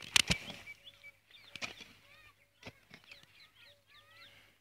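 A mattock blade striking into dry soil while digging a planting pit: a loud double chop just after the start, then two lighter strikes about a second apart. Birds chirp through the middle and later part.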